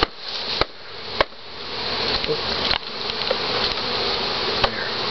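Many honeybees buzzing in a steady, dense hum as a freshly installed package flies about the open hive. A handful of sharp knocks cut through it, three of them in the first second or so.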